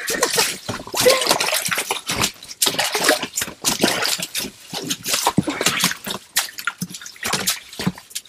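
Water splashing and dripping in an ice-fishing hole as a hooked small lake trout is hauled up through it, a dense run of irregular splashes and drips.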